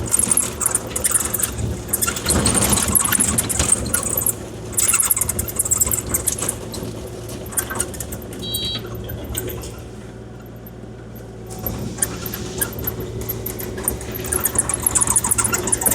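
Kubota KX040-4 mini excavator's diesel engine running steadily while its bucket scrapes and drags across gravel, with crunching and grinding of stone. The scraping eases off for a moment about ten seconds in, then picks up again.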